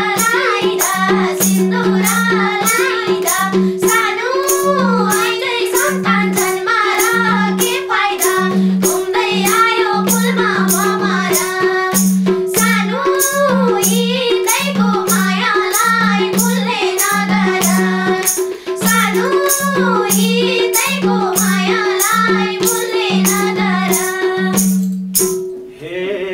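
Women singing a Nepali dohori folk song together, over a steady drum rhythm with sharp, evenly spaced percussion strokes a few times a second. The music stops abruptly near the end.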